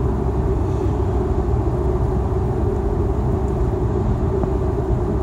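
Steady road noise of a car driving at motorway speed, heard from inside the cabin, mostly a low, even noise of tyres and engine.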